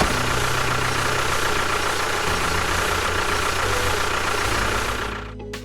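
Small engine of a homemade mini tractor or bulldozer running steadily at idle with a heavy hiss, dying away about five seconds in.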